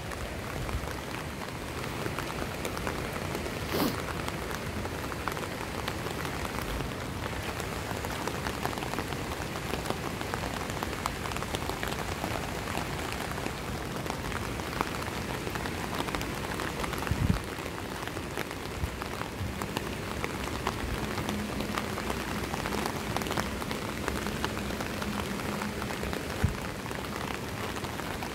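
Steady rain pattering on an umbrella canopy, a dense stream of small drop ticks, with a few heavier knocks about 4 and 17 seconds in.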